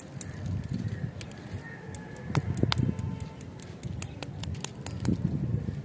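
Close handling of a plastic-wrapped candy bar: crinkly wrapper rustles and small sharp clicks as fingers work a lollipop stick into it, with the loudest rustling about two and a half seconds in and again near the end.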